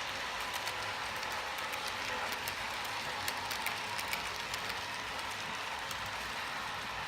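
Model train, a Union Pacific Big Boy 4014 locomotive pulling a troop coach, running along the track: a steady rolling hiss with many small irregular clicks from the wheels on the rails.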